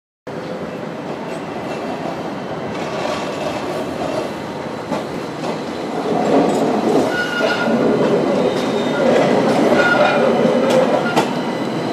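Steady city street noise, then an articulated electric tram passing close and turning through a junction, louder from about six seconds in. Its wheels give several short high squeals on the curved track, with a few clicks over the rails.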